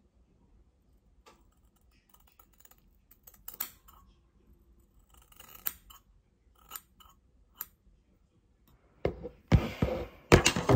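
Scissors snipping through hair as a fringe is trimmed: a few separate short snips spaced a second or more apart. About nine seconds in, a cluster of much louder knocks and rustling takes over.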